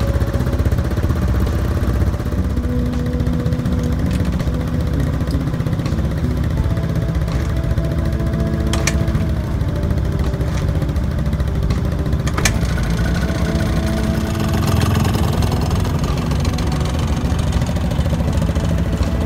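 Small scooter engines idling steadily just after a cold start from sitting unused: first a Yamaha Tricity 125, then a Honda Gyro Canopy, with a few shifts in the engine note and a couple of sharp clicks.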